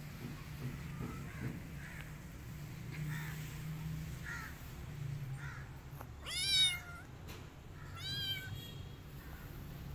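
Kitten meowing twice: a loud, high meow about six seconds in, then a shorter one about two seconds later.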